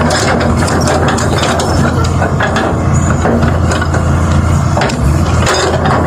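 Heavy engine running steadily with a low hum, with scattered short knocks and clanks on top.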